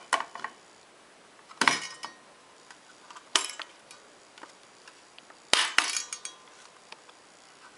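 A thermostat's snap-on plastic cover with a brushed-aluminium front being handled and pressed onto its base: a few sharp plastic clicks and clatters, one about a second and a half in, another near the middle, and a quick run of them about two thirds of the way through.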